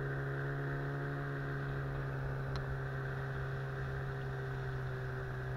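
Outboard motor on an inflatable boat running at a steady throttle: an even drone that holds its pitch throughout.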